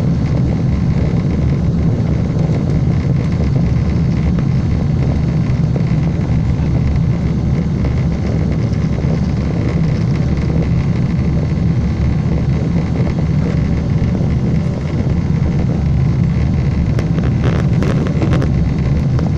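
Boeing 747 in flight, its jet engines and the airflow heard inside the passenger cabin as a steady, loud low roar. A few light clicks come near the end.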